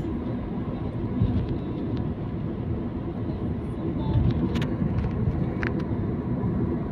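Steady engine and road noise of a Toyota Corolla, heard from inside the cabin while it drives along a street.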